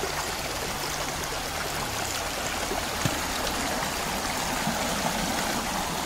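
Shallow stream water rushing and splashing steadily over a low line of stones.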